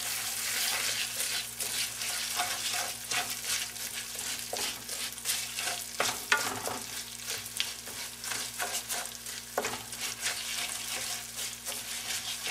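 Risotto rice frying in hot olive oil with onions, garlic and pine nuts in a nonstick frying pan: a steady sizzle, broken by the scrape of stirring and by more rice poured into the pan from a measuring cup. The rice is being toasted in the oil before any liquid goes in.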